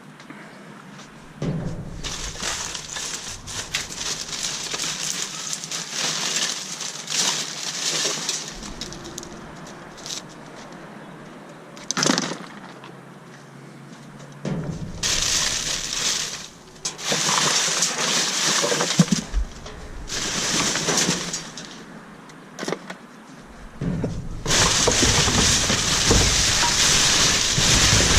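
Trash being rummaged through by hand: rustling and clattering in bursts of a few seconds, with quieter gaps between them.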